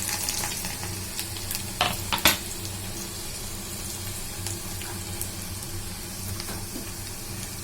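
Chopped onion, garlic and ginger sizzling in hot oil, the hiss easing over the first second and then holding steady. A couple of sharp knocks sound about two seconds in.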